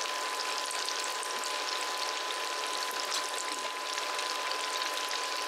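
Potato-dough fries deep-frying in hot oil, a steady bubbling sizzle with fine crackling. A thin steady tone sits underneath.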